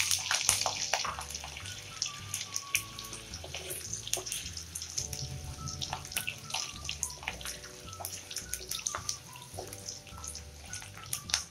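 Potato cubes frying in hot mustard oil in a nonstick kadai, sizzling, loudest at the start and settling down. A wooden spatula clicks and scrapes against the pan as the potatoes are stirred.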